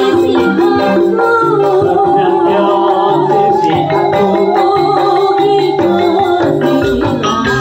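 Live dangdut band music: a woman sings the melody into a microphone over keyboard, bass and drums.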